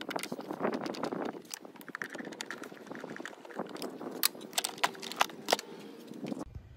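A hand tool clicking and rattling against the plastic air box while its T25 Torx bolts are being backed out: irregular sharp clicks over light rustling, with a few louder single clicks in the second half.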